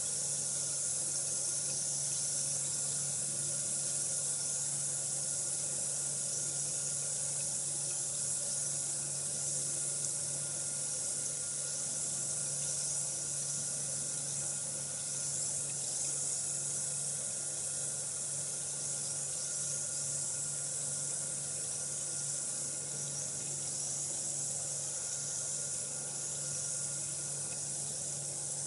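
Bath bomb fizzing in water as it dissolves, a steady high hiss, with a low steady hum underneath.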